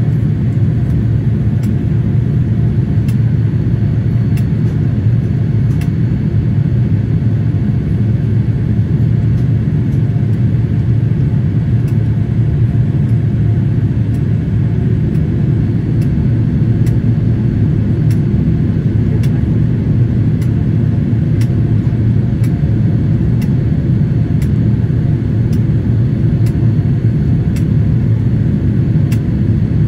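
Steady cabin noise inside a Boeing 787-8 airliner on descent, heard at a window seat. It is a loud, even, deep rumble of engine and airflow noise.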